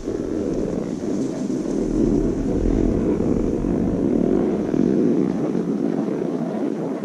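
Steady scraping hiss of snow under a rider sliding down a groomed run, with wind buffeting the microphone and rumbling low in the first half.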